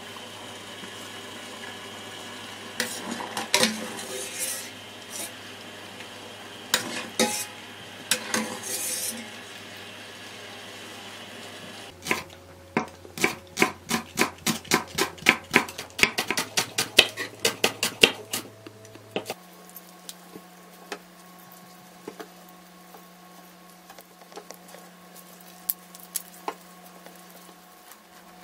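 Stainless-steel stockpot and ladle clinking and knocking while a boiled whole chicken is lifted out. Then, about halfway in, a knife chops a green onion on a wooden cutting board, about four quick cuts a second for some seven seconds. A few scattered soft clicks follow.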